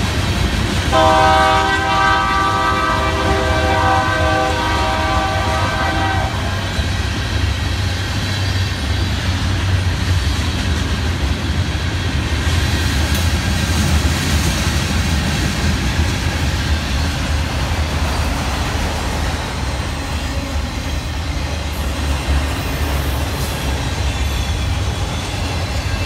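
Freight train rolling past with a steady rumble and rattle of cars on the rails. About a second in, a diesel locomotive's air horn sounds a chord of several notes for about five seconds, then stops.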